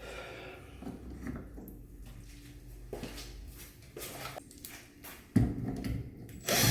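Small clicks and knocks of shower valve trim parts being handled and fitted into place, with a louder knock about five seconds in and a short rush of noise near the end.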